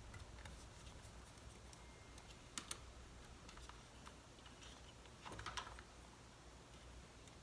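Faint scattered clicks and taps of small laptop parts and tools being handled as a MacBook Pro is reassembled: two sharp clicks in quick succession, then a short cluster of taps later on.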